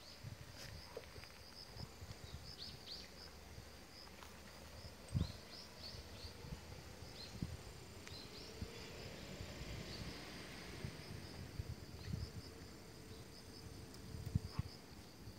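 Crickets chirping in a steady, even chorus, the sound of early autumn. A few soft low thumps come through, the loudest about five seconds in.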